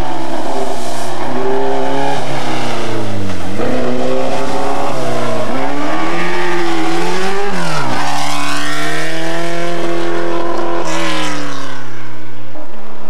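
Single-seater racing car engine revving hard as it accelerates up a hill, its pitch climbing and then dropping sharply at each of several gear changes, with a long held stretch at high revs in the middle.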